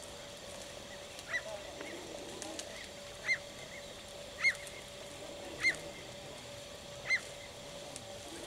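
A bird calling repeatedly in grassland: short, sharp, arched calls about every second and a half, with a faint steady hum underneath.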